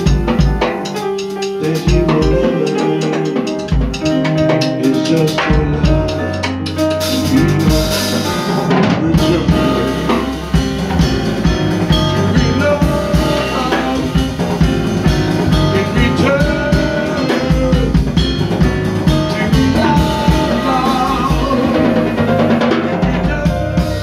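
Live jazz band playing an instrumental passage: a drum kit with rimshots and snare, electric bass and piano, with no singing.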